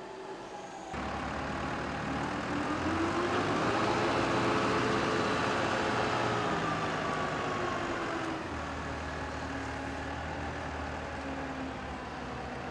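A vehicle engine runs over a steady low rumble, its pitch rising over a few seconds and then falling away.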